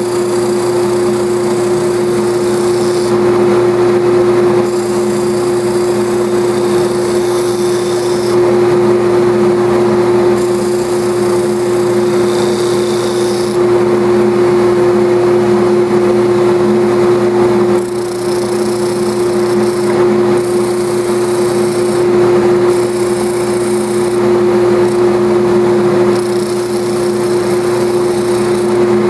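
Belt and disc sander running with a steady hum alongside a dust-extraction blower, while a balsa wood block is pressed against the sanding disc. Each pass of the wood on the disc adds a high scratchy sanding sound that starts and stops repeatedly.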